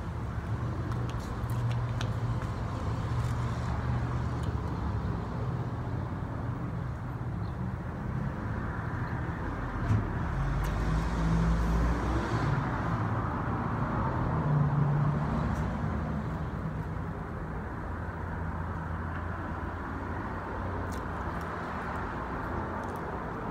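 Nearby road traffic: a steady low engine rumble that swells twice as vehicles go by, about ten and fifteen seconds in.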